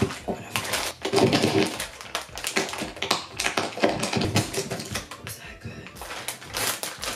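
Crisp chips being bitten and chewed close up to a handheld microphone: a dense run of sharp crunches and crackles, with the snack bag crinkling.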